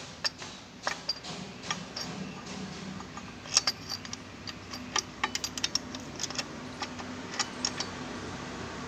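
Light, irregular metallic clicks and taps as small engine parts are handled and fitted against the crankshaft and main bearing area of a bare engine block, with a few quick runs of clicks.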